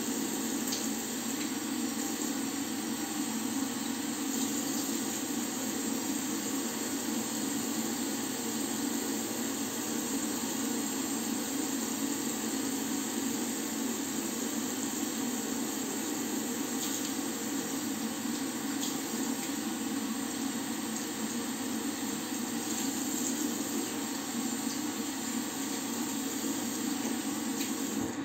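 Tap water running steadily into a bathroom washbasin while face and hands are washed, with a steady low hum underneath.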